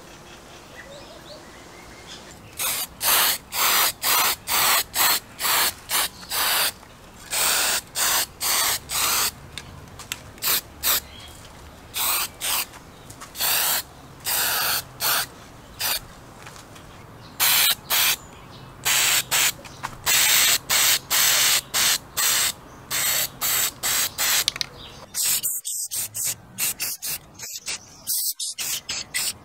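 Aerosol can of high-heat enamel spray paint hissing in many short bursts, one after another, starting a few seconds in.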